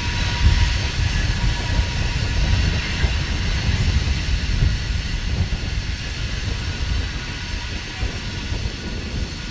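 Loaded rock hopper cars of a freight train rolling past and away, a steady low rumble of wheels on rail that slowly fades toward the end.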